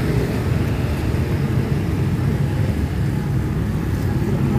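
Steady low rumble of road traffic, with a faint hiss above it.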